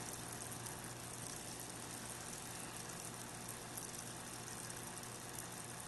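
Faint, steady bubbling of an airstone in a few inches of water, fed by a Cobalt Phantom ultrasonic air pump, over a very low hum from the pump.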